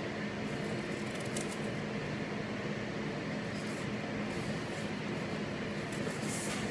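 Steady machine hum, with a few faint scrapes as a paring knife peels an apple.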